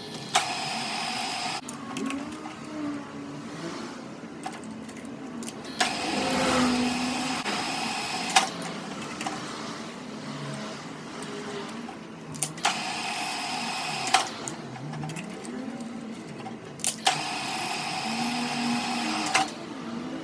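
A metalworking machine running in four separate bursts of one to two and a half seconds each. Every burst starts and stops abruptly with a click.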